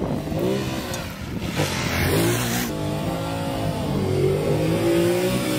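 Ducati DesertX's 937 cc L-twin engine revving, its pitch rising and falling as the throttle opens and closes, with a brief hiss about two seconds in.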